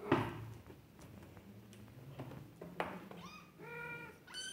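British Shorthair kittens mewing: three short, high-pitched mews in the second half. A soft thump or rustle near the start is the loudest sound.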